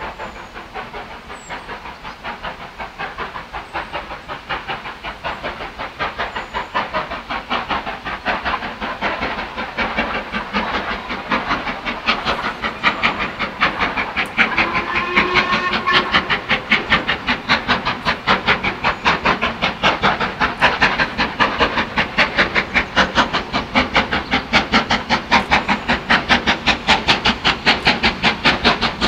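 Steam locomotive approaching, its exhaust beats coming in a steady quick rhythm and growing steadily louder as it nears. A short steam whistle sounds about halfway through.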